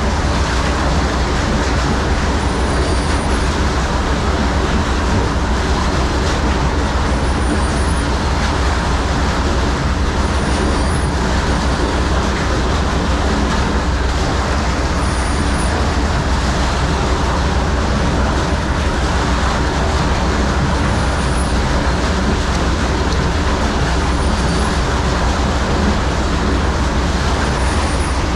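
A motor-driven machine running steadily at constant speed, loud and unchanging, with faint high squeaks recurring every two to three seconds.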